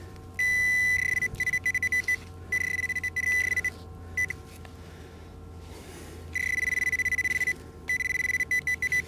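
Metal detector's target tone: one steady high beep that comes and goes as the coil sweeps, sometimes held for a second or more and sometimes breaking into rapid chattering pulses, with a pause of about two seconds midway. The signal is a mid-tone target response.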